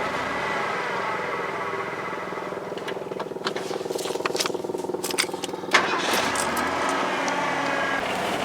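Ford F-150's 4.9-litre straight-six engine running after a throttle position sensor replacement, with a rough idle that is not as rough as it was. About six seconds in, the engine sound steps up louder and fuller.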